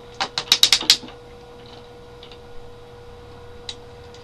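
Hard plastic toy parts clicking and rattling as a Transformers Scourge toy's trailer is turned round and handled: a quick run of about eight sharp clicks in the first second, then a couple of faint single clicks.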